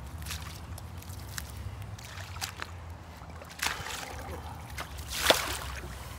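Shallow water sloshing and splashing around rubber boots as a man wades in a drainage ditch. A sharper splash comes about five seconds in, over a steady low rumble.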